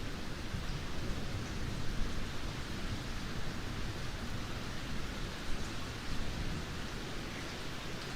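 Steady rain falling, an even hiss, with a low rumble of thunder dying away over the first couple of seconds.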